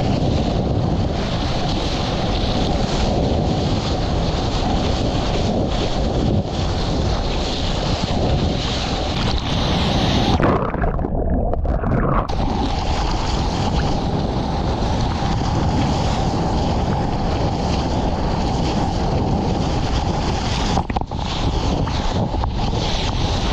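Rushing whitewater and wind buffeting a wet action camera's microphone as a surfboard rides a breaking wave, a loud, steady rush. For about two seconds near the middle the sound turns muffled as the camera is swamped in whitewater.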